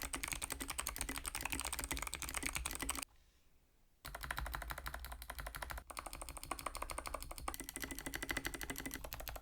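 Fast typing on a mechanical keyboard with Kailh Box Navy clicky switches. Each keystroke is a crisp, sharp click from the switch's thick click bar. The typing stops for about a second around three seconds in, then carries on.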